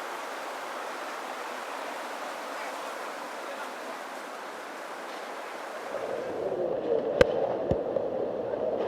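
Rushing floodwater: a steady hiss of moving water. About six seconds in, the sound turns lower and louder, with a couple of sharp knocks.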